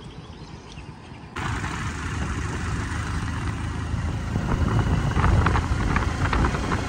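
A faint low hum, then about a second and a half in a sudden switch to loud wind rushing over the microphone and a motorcycle engine running while riding along a road, with short crackling gusts in the second half.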